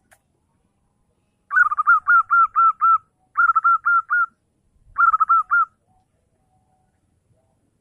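Zebra dove (perkutut) singing: three short phrases of quick, repeated cooing notes, the first the longest, with brief pauses between them.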